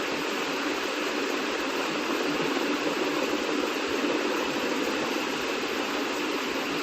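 Steady, even background hiss with no speech or music.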